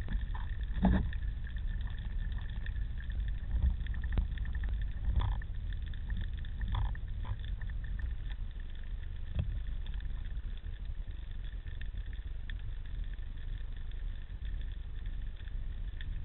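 Underwater sound picked up by a camera in its housing on a speargun: a steady low rumble of water moving past, with a few short knocks and clicks.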